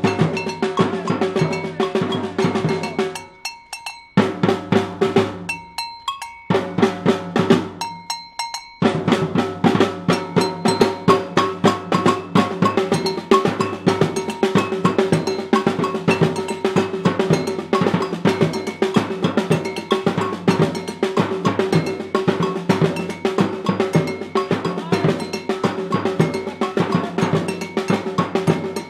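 Street drum group playing a steady, dense rhythm on a snare drum and two aluminium-shelled drums struck with sticks. The beat drops to a few scattered strokes twice in the first nine seconds, then the full rhythm comes back in and carries on.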